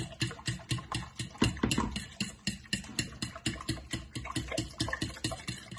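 Metal fork beating raw eggs and milk in a stainless steel pan, clicking against the pan in a quick, even rhythm of about five strokes a second.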